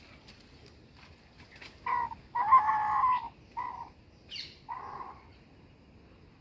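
Chickens calling: a few short squawks and one longer, louder call about two and a half seconds in.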